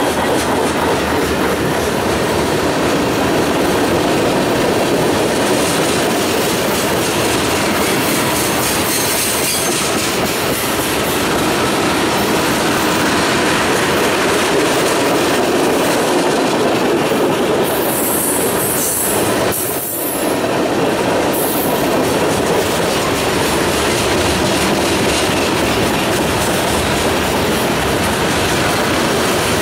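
Freight cars (tank cars and covered hoppers) rolling past close by: a loud, steady noise of steel wheels on rail. About two-thirds of the way through comes a brief higher squeal.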